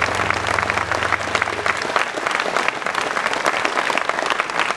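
Audience applauding with dense, steady clapping, with a low held note underneath that stops about two seconds in.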